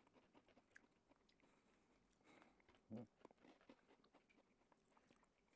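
Faint biting and chewing of crunchy chocolate-coated biscuit sticks (Lotte Pepero), heard as scattered small crunches over near silence, with one slightly louder one about three seconds in.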